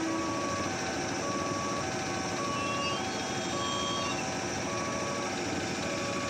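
Railway level-crossing alarm sounding an alternating high-low beep, a little over one pair a second, over the noise of a passing electric commuter train.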